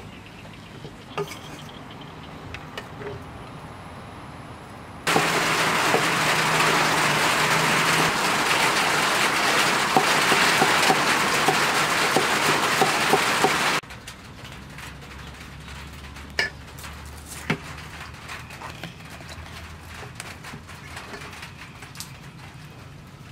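Scattered knocks of a steel cleaver on a wooden chopping board. About five seconds in, a loud, steady rushing noise with a fine crackle cuts in abruptly and stops just as suddenly some nine seconds later.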